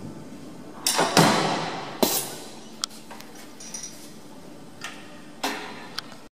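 Metal clanks and clinks as a heavy metal workpiece held in a manipulator arm's gripper is lifted off a lathe chuck and handled. There are several sharp knocks with a ringing tail: the loudest come about a second in and again around two seconds, and a few lighter ones follow near the end.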